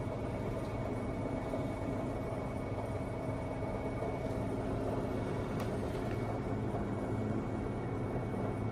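A steady hum and rumble of background noise with a thin high tone, and a single faint click a little over halfway through.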